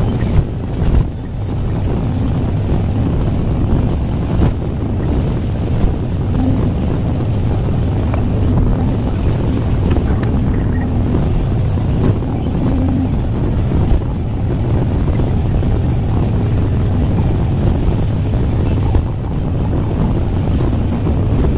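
Hydraulic excavator's diesel engine running steadily under load as the bucket digs and swings, heard from inside the operator's cab, with a few short knocks and rattles.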